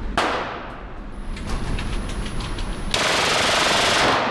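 Full-auto 9 mm Glock pistol firing on an indoor range: a sharp shot with a ringing tail just after the start, a few separate shots around a second and a half in, then a dense burst of about a second near the end.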